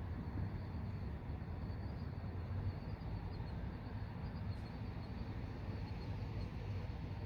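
Steady low rumble of distant road traffic, with faint high-pitched insect chirping running along above it.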